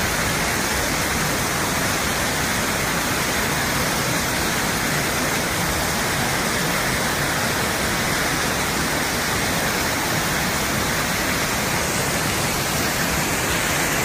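Small waterfall cascading over boulders in a rocky stream: a steady, even rush of falling water.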